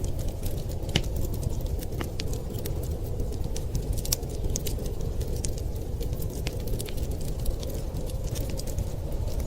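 Wood fire crackling in a fireplace, with irregular sharp pops and snaps over a steady low rumble of wind.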